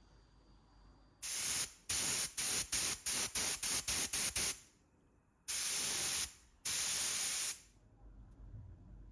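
Aerosol spray can hissing in a string of about ten quick bursts, then two longer sprays of about a second each.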